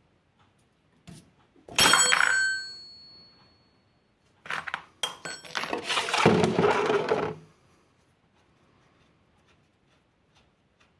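A metal open-end wrench clinks once with a brief ringing tail. A few seconds later comes a run of scraping and knocking, about three seconds long: a plastic drain container being pushed into place across wooden floorboards under the engine.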